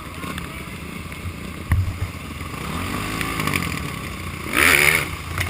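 Dirt bike engine running under a steady rumble of wind and rain noise, with a rev rising in pitch about four and a half seconds in, the loudest moment.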